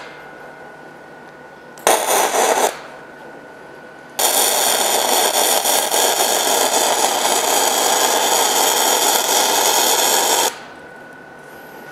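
Gasless flux-cored MIG welding arc crackling on 4 mm mild steel plate: a brief burst of under a second, then a steady bead about six seconds long that cuts off abruptly.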